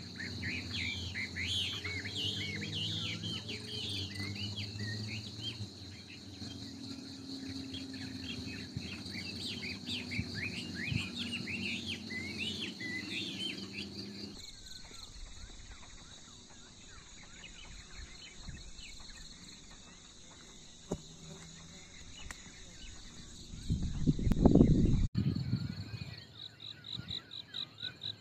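Insects buzzing steadily at a high pitch, with many birds chirping over them; the birdsong drops away after a sudden change about halfway through. Near the end a loud low rumble swells for about a second and stops abruptly, and the insect sound then goes on in quick pulses.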